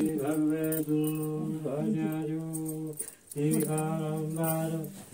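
A voice chanting a prayer during aarti in long, steady held notes, in three phrases with short breaks between them.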